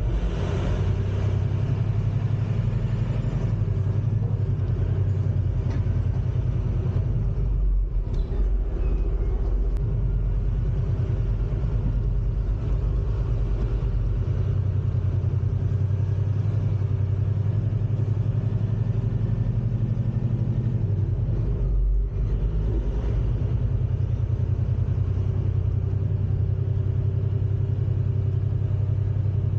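Semi-truck diesel engine running under way, heard from inside the cab as a steady low rumble that briefly dips twice.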